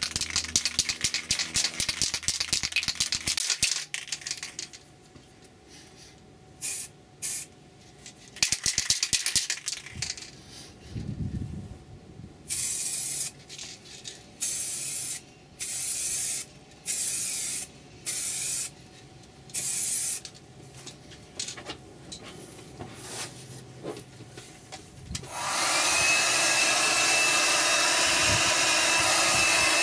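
Aerosol can of water-based paint shaken, its mixing ball rattling fast, then a series of short hissing bursts of spray, about a second each. Near the end a heat gun on a low setting starts and runs steadily with a thin whine.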